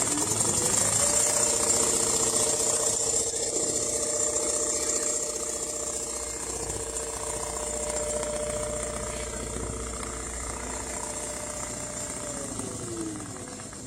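Richpeace automatic CNC sewing machine running: its motor whine rises to speed in about the first second, holds a steady pitch while it stitches, then falls away as it slows near the end.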